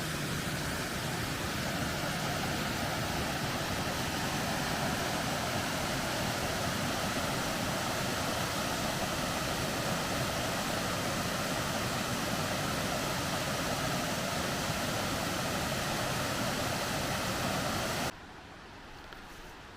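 Waterfall on Stonewall Creek: steady rush of falling water, cutting off suddenly about 18 seconds in.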